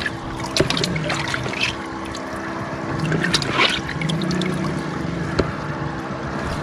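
A hand splashing and rummaging in the water of a collapsible bait bucket to catch a small live shrimp, in two spells of short wet splashes. A steady low hum runs underneath.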